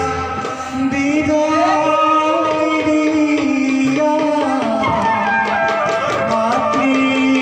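Bhaona music: a voice singing long, bending held notes over a steady drum accompaniment.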